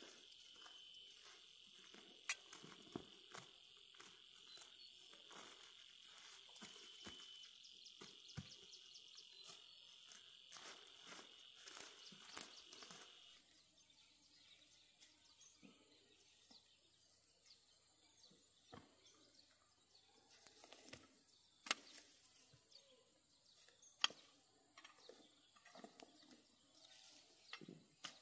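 Faint, steady high-pitched insect drone that cuts off abruptly about halfway through, with scattered light clicks and taps and a few sharper ticks near the end.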